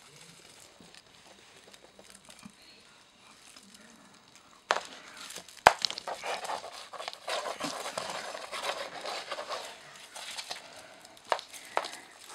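Crinkly rustling of a cat teaser toy being shaken over kittens, starting about four and a half seconds in, with one sharp click soon after and two more clicks near the end.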